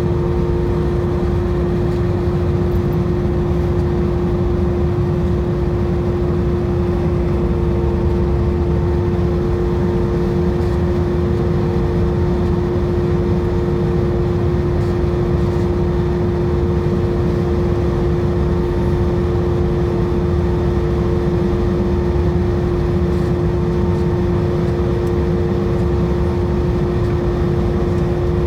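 Steady in-flight cabin noise of an Airbus A320 airliner: engine and airflow drone with a low rumble under a steady humming tone, unchanging throughout.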